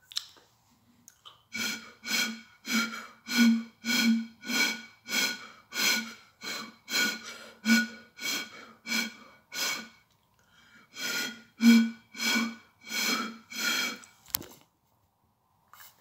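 Rhythmic puffs blown into the mouth of a glass beer bottle: each puff is a short, breathy, low hoot, coming about one and a half to two a second in a long run, a brief pause, then a shorter run. A sharp click sounds near the end.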